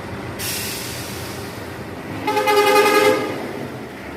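Bus horn giving one blast of just under a second, a single pitched tone with strong overtones, the loudest sound here. Before it there is a hiss lasting about a second and a half.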